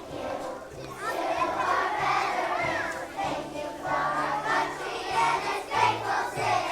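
A group of young children singing together over an instrumental accompaniment that holds steady low notes.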